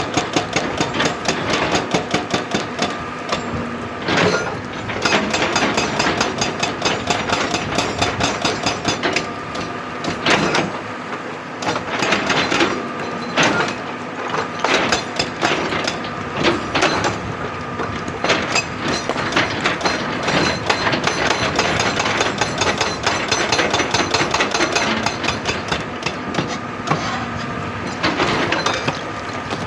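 Excavator-mounted hydraulic rock breaker hammering rock with rapid, steady blows, a few strikes standing out louder than the rest.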